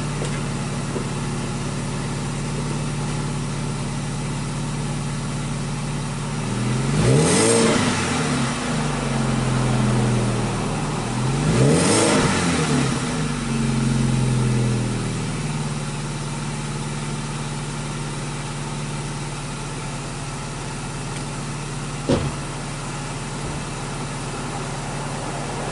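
BMW 316i E90's 1.6-litre four-cylinder idling cold through a modified exhaust. It is revved twice, each rev rising and falling back to idle over about two seconds, about seven and twelve seconds in. A car door slams shut near the end.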